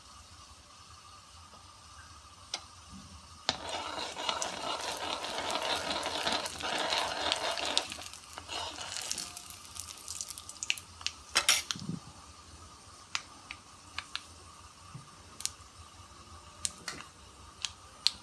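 Tempering of chana dal, moong dal, cumin and mustard seeds frying in hot oil in a pan: a crackling sizzle swells about three and a half seconds in and dies away a few seconds later, followed by scattered sharp clicks.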